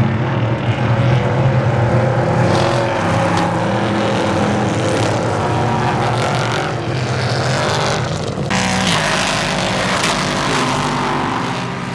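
A pack of LMP3 prototype race cars, each with a Nissan V8, running hard past the fence at the start of the race. Many engines sound together, overlapping, and the pack eases away slightly near the end.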